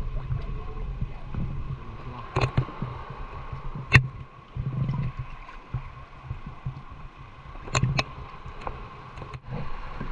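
Small fishing boat at sea: water sloshing and gurgling against the hull over a steady low hum, with a few sharp knocks, the loudest about four seconds in.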